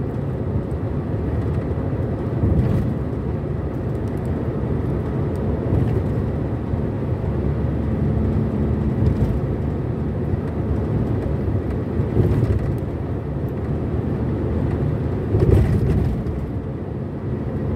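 Car driving at highway speed, heard from inside the cabin: a steady low rumble of tyres on the road and the engine, with a few brief faint knocks.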